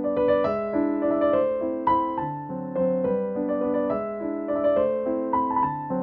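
Background piano music: a melody of struck notes over chords.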